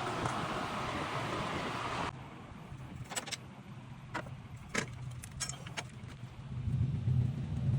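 A steady rushing noise that cuts off abruptly about two seconds in, then a series of sharp metallic clinks and clanks of tools and parts being handled, about six in three seconds, with a low rumble building near the end.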